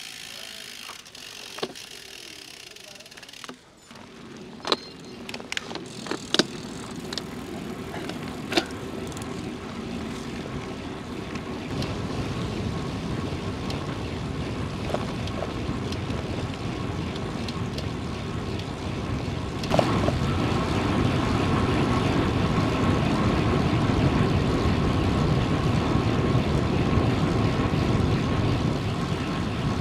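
Wind and road noise from a moving bicycle: an even rush that builds through the stretch and jumps louder after a click about twenty seconds in. Several sharp clicks and knocks come in the first third.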